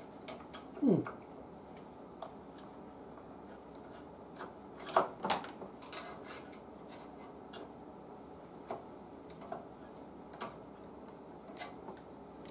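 Scattered light clicks and taps of hand tools and small parts as a condenser is worked loose on an old radio's wooden breadboard, with a louder pair of clicks about five seconds in and a short sound falling in pitch about a second in.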